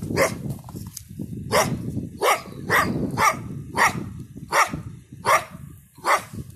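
A canine caught in a foothold trap barks sharply about nine times, roughly one bark every half second to a second.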